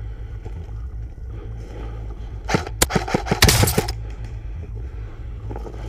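A quick run of sharp clicks and rattles about two and a half seconds in, thickening into a dense clatter for about a second, over a steady low rumble.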